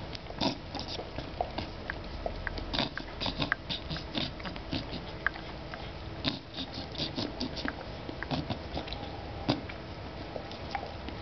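Beagle licking dulce de leche off a teaspoon and smacking its lips: an irregular run of quick, wet tongue clicks and smacks, several a second.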